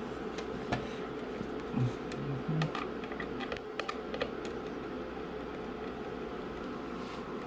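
Scattered light plastic clicks and taps of a SAAB 9-3 climate control unit being handled and worked on, most of them in the first half, over a steady background hum.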